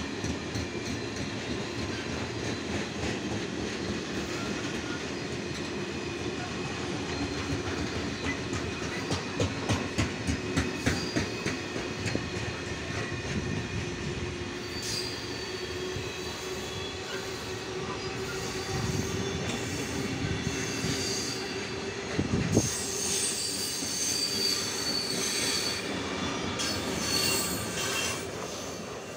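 Long freight train of loaded Talbot-type hopper wagons rolling past at speed, wheels clattering over rail joints with a run of sharp clicks, then high-pitched wheel squeal in the second half. The last wagon passes near the end and the sound fades.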